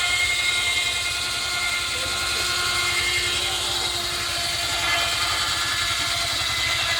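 Machinery running steadily, with a fast, even beat underneath and several steady high tones.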